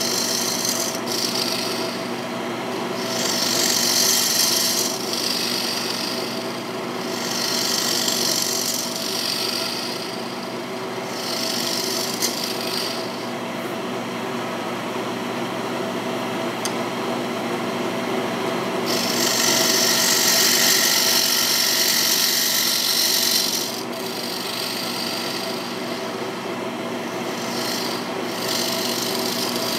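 Wood lathe running with a steady motor hum while a scraper cuts into the spinning rectangular bowl blank in several harsh scraping passes, the longest about two-thirds of the way through. Between passes only the lathe's hum is heard.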